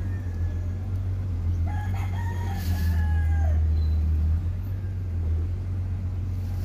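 A rooster crowing once, a call of about two seconds that starts a little under two seconds in, over a steady low rumble.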